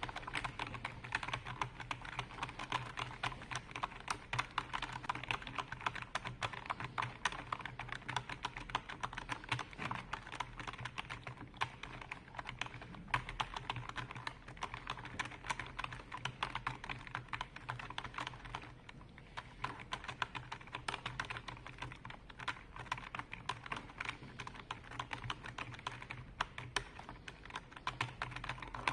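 Continuous fast typing on a computer keyboard, with many irregular key clicks and a brief lull partway through.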